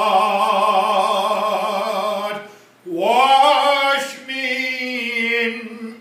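A man singing a hymn solo and unaccompanied, holding two long notes with a short breath between them; he slides up into the second note about three seconds in.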